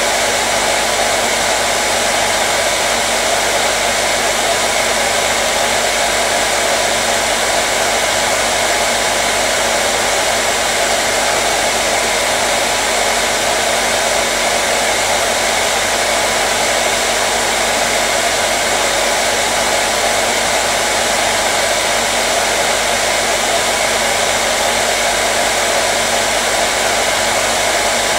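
Electric hair dryer blowing continuously at a constant setting: a steady, even whoosh of air with a faint hum from its motor, unchanging throughout.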